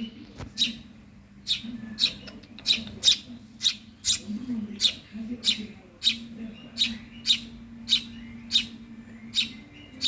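Eurasian tree sparrow chick begging for food: short, sharp chirps repeated about twice a second, the hungry call a nestling makes to get its parent to feed it.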